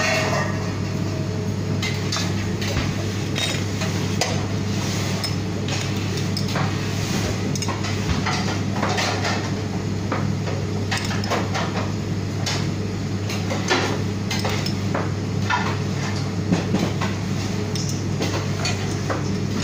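Kitchen clatter: scattered clinks and knocks of metal utensils, pans and dishes over a steady low hum.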